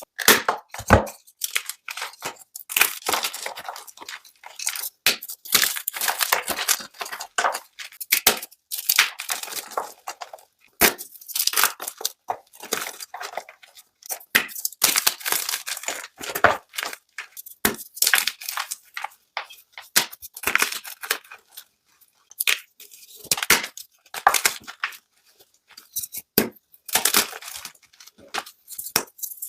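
Blocks of gym chalk being crushed and crumbled, a quick run of crunchy crackles and snaps in clusters with short pauses between.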